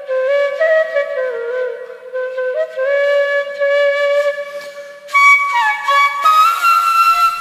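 Background flute music: a solo flute melody moving between notes with slides and bends.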